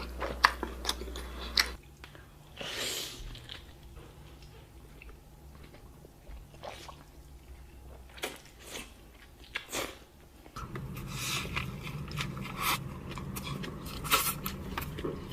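Close-miked eating sounds: big bites with sharp crunches and wet chewing between them. The low background hum changes abruptly twice as one clip gives way to another.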